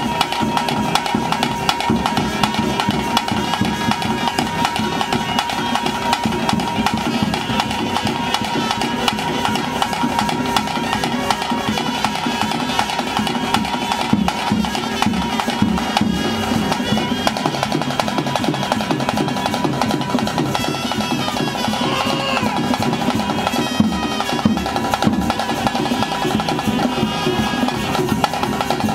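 Traditional ritual music: fast, continuous drumming with held melodic notes from a wind instrument over it.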